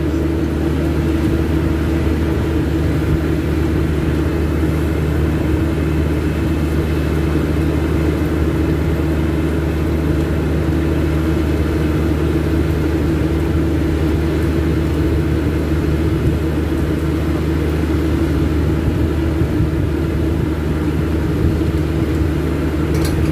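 Steady machine drone: a constant low hum with a few held tones over an even rushing noise, unchanging in level.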